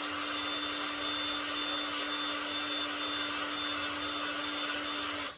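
Power tool spinning a wire brush against metal, scouring rust and gunk off the mower's wheel parts: a steady motor whine with a hiss of bristles, held at one speed, then switched off just before the end.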